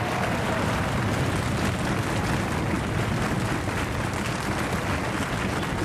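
Studio audience applauding steadily, a dense unbroken clatter of clapping.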